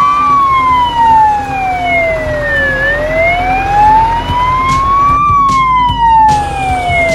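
Fire truck siren in a slow wail. Its pitch falls, rises and falls again, each sweep taking about two and a half seconds.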